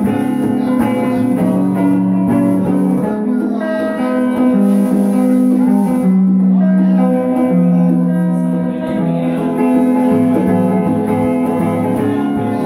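Live music from a guitar and a pair of congas: the guitar plays ringing chords that change every second or so, with hand drumming underneath.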